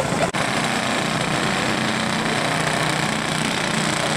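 Small-engine caged race cars running on a short oval track, several engines at once, a steady high-revving drone. The sound drops out briefly about a third of a second in, then carries on.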